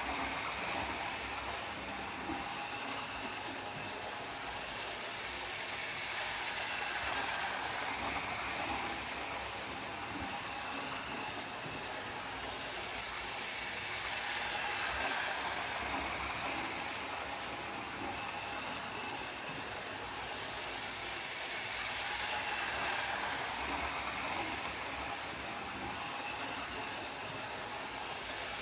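Model trains running around a table-top layout: a steady hissing running noise of motors and wheels on the track. It swells about every eight seconds as a train comes round nearest.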